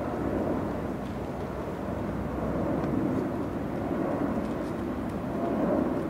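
Steady low outdoor background rumble, growing a little louder near the end.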